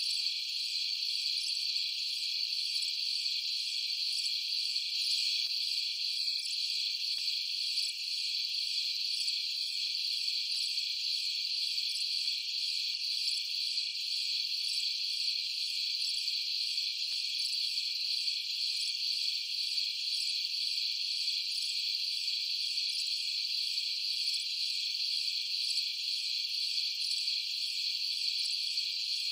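Steady, high-pitched chorus of insects trilling without a break, with a fast even pulsing in it.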